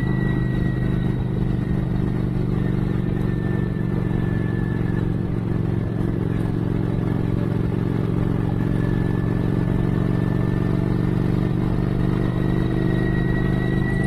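Cruiser motorcycle engine running steadily at cruising speed, its pitch even with no revving, over a haze of road noise.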